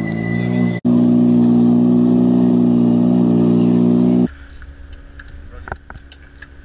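A rally car's engine runs loudly at near-steady revs, with a brief break under a second in. The engine sound cuts off abruptly about four seconds in, leaving low wind rumble and scattered faint clicks.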